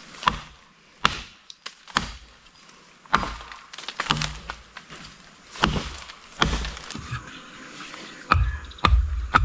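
A paddle knocking against the side of a wooden canoe: a series of short, sharp wooden knocks and thuds at uneven intervals, about one a second.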